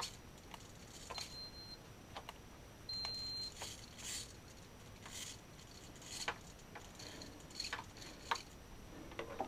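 Faint ticks and short whirs of small hobby servos swinging a pan-tilt camera mount, with two short high beeps about one and three seconds in.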